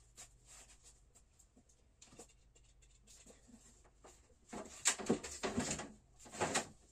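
Household clutter being shifted by hand on a floor: faint knocks and rustles, then two louder bursts of rustling and clattering about two-thirds of the way through.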